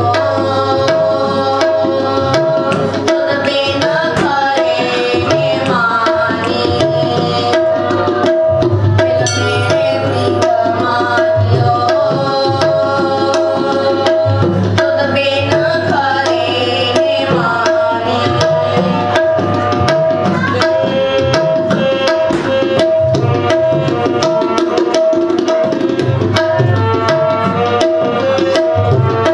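Harmonium playing a melody over held chords, with a fast hand-drum rhythm beating along underneath.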